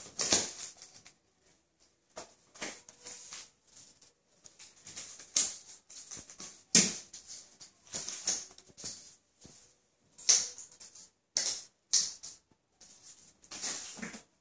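A cat chasing and pouncing on a feather cat toy on a vinyl floor: irregular scuffs, pattering paws and scrabbling claws, with quick swishes and flutters from the feathers and a few sharper thumps as it lands.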